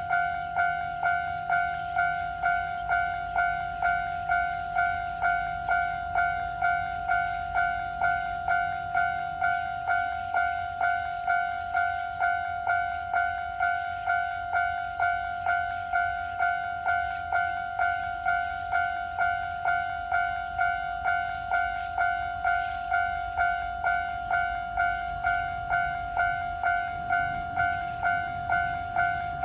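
Japanese railroad crossing alarm ringing its electronic "kan-kan" bell in a steady, even rhythm. Beneath it a low rumble is heard, most likely the 815 series electric train running through the crossing, and a low hum in that rumble stops about nine and a half seconds in.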